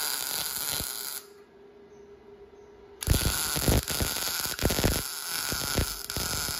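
MIG welding arc crackling and hissing: one bead stops about a second in and, after a pause with only a faint steady hum, the next starts about three seconds in and runs on.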